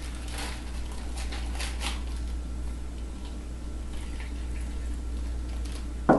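Plastic zip-top bag crinkling and rustling as it is handled and opened, over a steady low hum. One sharp knock near the end.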